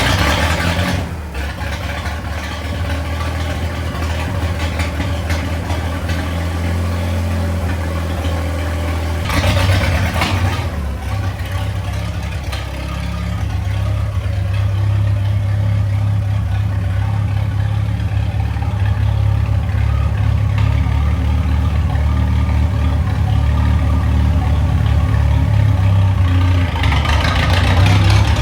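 Tractor engine running steadily at a low, even speed, growing louder for a moment about ten seconds in and again near the end.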